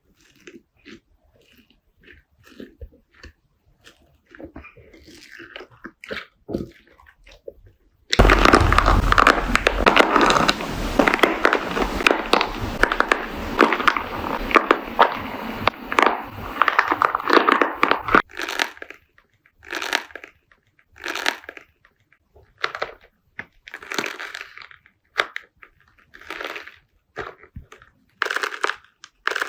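Slime being handled and squeezed: faint sticky clicks and crackles at first, then about eight seconds in a dense, loud crackling crunch for about ten seconds that stops abruptly, followed by separate short squishing crunches roughly once a second.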